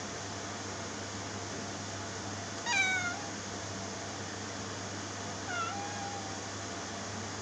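Ginger-and-white kitten meowing twice: a louder meow falling in pitch about three seconds in, and a softer, longer one near six seconds, over a steady hiss.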